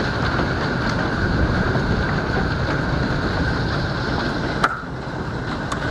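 Hail falling hard: a dense, steady rush of hailstones striking, with one sharp crack about four and a half seconds in, after which it eases slightly.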